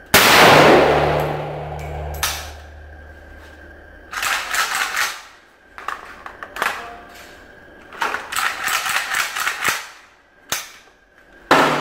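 A single shot from a Sarsılmaz SAR 308, an AK-pattern rifle in 7.62×39 mm, right at the start, echoing off the range's walls for about two seconds. It is followed by bursts of metallic clicks and rattles as the rifle is handled, and a sharp loud bang near the end.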